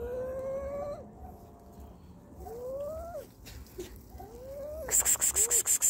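A cat meowing over and over, about four drawn-out calls that each rise in pitch, typical of hungry cats at feeding. Near the end a fast, even scratching noise starts, about six strokes a second.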